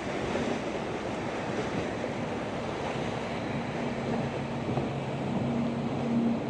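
Motorboat engine droning under a steady wash of water and wind noise on the microphone. The engine hum grows louder near the end.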